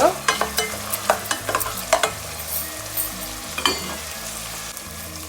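A spoon stirring and scraping against a pan of pomegranate arils frying in hot oil with the tempering. Irregular clicks and knocks sound over a steady sizzle; the stirring stops about four seconds in, leaving only the sizzle.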